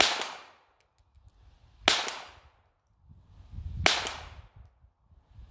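Semi-automatic pistol fired three times, slow single shots about two seconds apart, each a sharp crack followed by a short echo dying away over about half a second.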